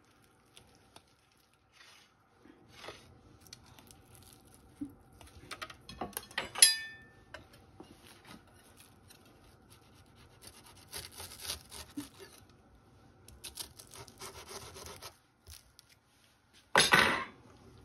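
A knife sawing through the crisp baked pastry crust of a steak pie and metal utensils scraping in the pie dish. There is a sharp ringing clink about six and a half seconds in and a brief loud scrape near the end.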